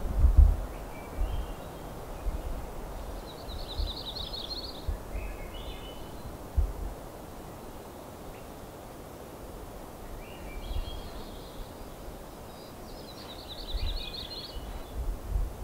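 A songbird singing in forest: short phrases of stepped notes and a fast trill, the trilled phrase heard twice, about ten seconds apart. Low rumbling bursts sit underneath, loudest at the very start.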